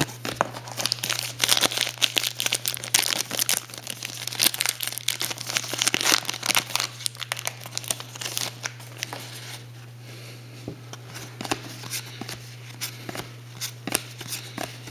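Foil wrapper of a trading-card pack crinkling and tearing as it is ripped open, in a dense crackle for about ten seconds. The crackle then thins to a few light ticks as the cards are handled.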